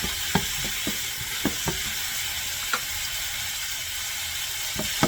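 Minced garlic and onion sizzling in hot olive oil in a pan, with a few sharp clicks of a utensil against the pan as it is stirred.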